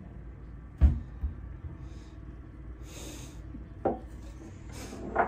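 Kitchenware being handled at an open cupboard: one sharp knock about a second in, then rustling and two lighter knocks near the end.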